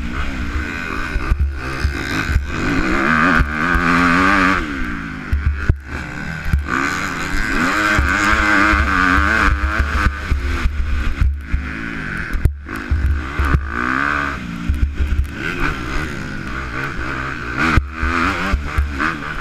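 Motocross bike engine revving hard and backing off again and again as the rider works through the turns and climbs, with wind buffeting the helmet camera's microphone.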